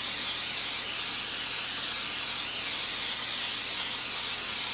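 Aerosol cooking spray hissing in one long, even spray over a casserole topping, then cutting off.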